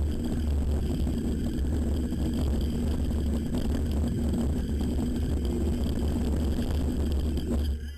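Wind rushing over the camera microphone and the chatter and rattle of a mountain bike riding fast down a bumpy dirt downhill trail. The sound dips out briefly just before the end.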